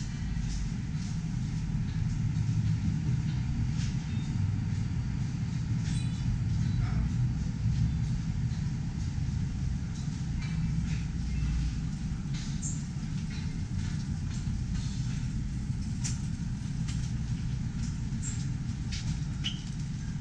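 Low, steady rumbling ambience inside a grocery store, with faint scattered clicks and knocks.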